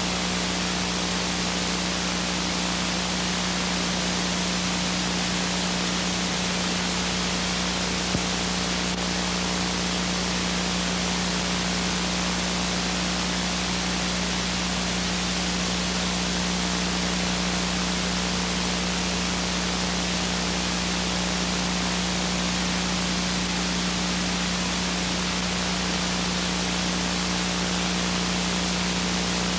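Steady hiss with a constant low hum and no other sound: the noise of a blank stretch of old recording, with one tiny click about eight seconds in.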